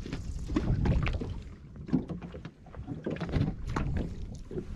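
Small boat afloat: water slapping and knocking against the hull under a steady low rumble, with scattered knocks and clicks of gear in the boat.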